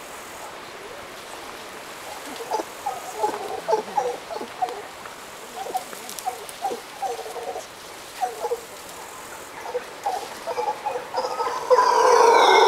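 Mantled howler monkeys giving short, irregular grunting calls, several a second, then breaking into a loud, drawn-out howl near the end.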